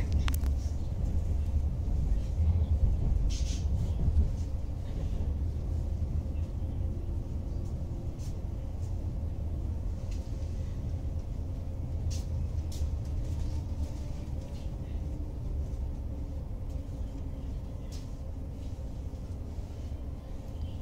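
Cabin noise inside a moving ЭГ2Тв Ivolga electric train: a steady low rumble of wheels on rail with a few faint clicks, growing gradually quieter through the second half.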